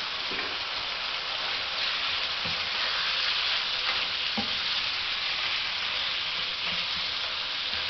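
Strips of beef steak sizzling steadily in a frying pan while being stirred with a spatula and fork, with a few soft knocks of the utensils against the pan.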